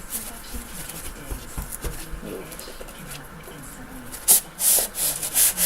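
Product packaging being handled and unwrapped, rustling and crinkling in several loud bursts from about four seconds in.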